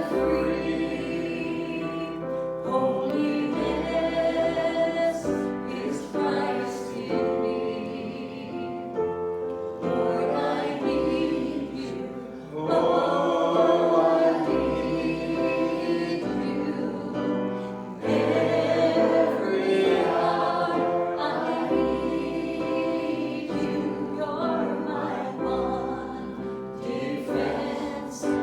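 Congregation singing a slow hymn together, with piano accompaniment holding long chords and bass notes.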